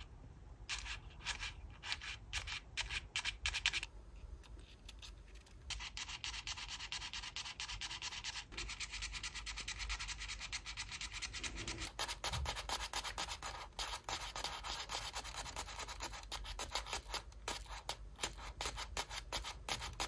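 Folded-paper origami button toys being pressed over and over, giving rapid soft clicking and rustling of paper. Scattered presses at first, then a short pause, then fast continuous clicking.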